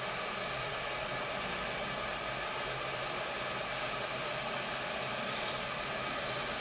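Hot air rework gun blowing a steady stream of air at 250 °C, heating the high-temperature solder on a phone motherboard's charging-port pads so it can be wicked off.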